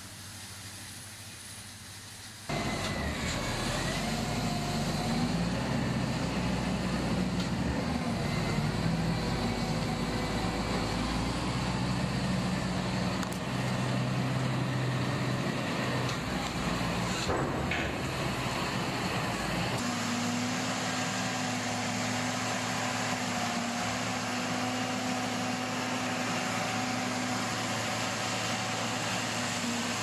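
Heavy machinery's diesel engine running under load. It gets much louder suddenly about two and a half seconds in, and its steady note shifts in pitch a few times.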